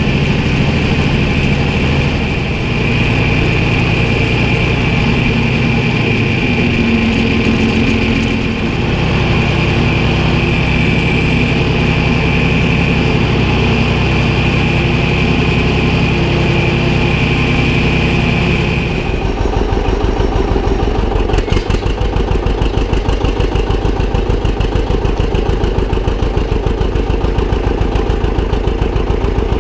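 Tractor engine running steadily under load with a steady high whine over it, while a grinder-mixer is filled by an auger. A little past halfway the whine stops and the sound changes to a tractor engine idling with a quick, even low pulse.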